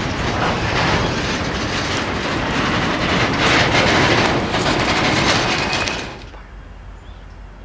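Freight train cars rolling past close by, the wheels clicking over rail joints in a loud steady rumble that drops away sharply about six seconds in.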